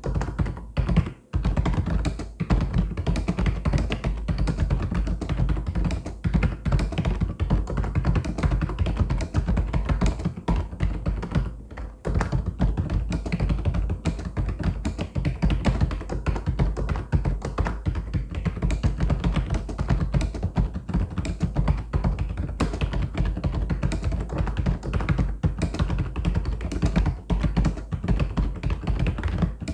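Mechanical keyboard typing: a fast, continuous run of clicking keystrokes, with brief pauses about a second in and around twelve seconds in.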